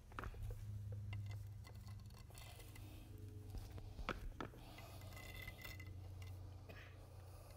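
Spiked shoes stepping on a wet epoxy floor, giving a few faint sharp clicks, two of them close together about four seconds in, over a steady low hum.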